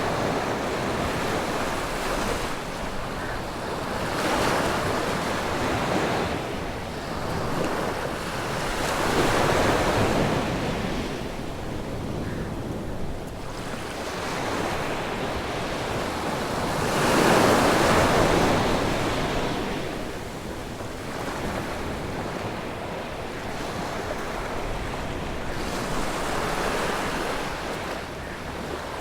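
Calm ocean waves breaking on a beach, the surf swelling and receding every few seconds with the biggest break about two-thirds of the way through, with some wind on the microphone.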